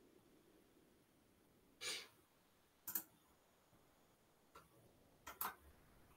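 Near silence broken by a few faint clicks: one about three seconds in and a quick pair near the end. There is also a short, softer puff of noise about two seconds in.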